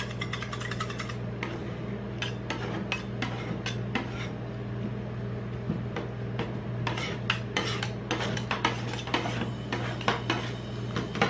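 Two metal spatulas chopping and scraping on a metal rolled-ice-cream plate as toppings are chopped into the cream base: an uneven run of sharp metal taps and scrapes, busier in the second half, over a steady low hum.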